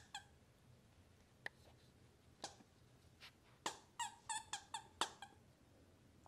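Shiba Inu puppies playing with plush toys: scattered soft clicks and knocks, then a quick run of about five short, high squeaks a quarter second apart, around four to five seconds in.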